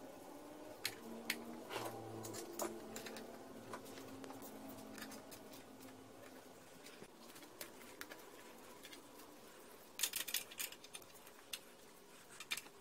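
Faint scattered clicks and small rattles of hand tools and parts being handled on an outboard motor's powerhead, with a quick run of clicks about ten seconds in.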